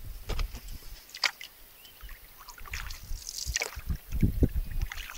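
Canoe paddle strokes: the blade splashing in and water dripping and trickling off it, in irregular bursts, with low rumbles rising near the end.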